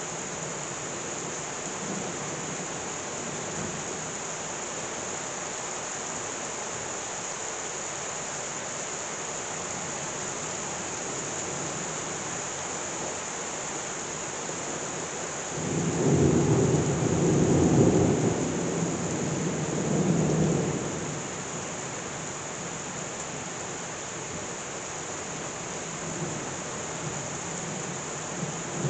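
Heavy rain pouring down with a steady hiss. About halfway through, a roll of thunder rumbles for about five seconds, swelling twice before it fades.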